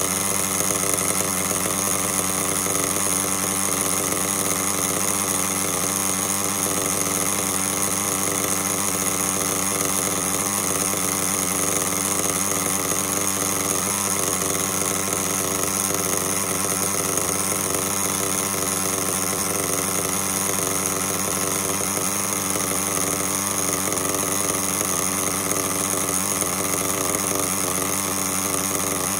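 Thunder Tiger two-stroke glow (nitro) engine in an RC buggy running at a steady idle, its pitch holding even throughout with no revving.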